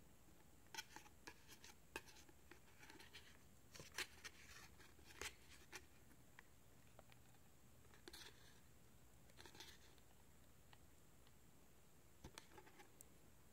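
Faint, scattered scratches and small clicks of fingers handling a paper backing card and working the rubber backs on a pin.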